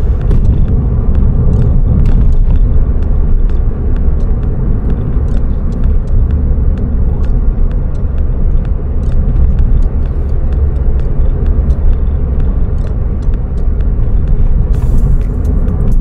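Steady low rumble of engine and road noise inside the cabin of a Suzuki Swift Sport (ZC32S) driving at a constant pace.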